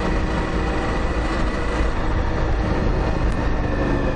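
Motorcycle riding at a steady cruising speed, heard from the rider's helmet: the engine runs steadily under a continuous rush of wind on the microphone.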